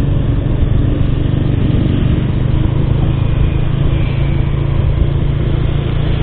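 Steady low rumble of wind on the microphone over a Bajaj Pulsar motorcycle's engine running while riding along.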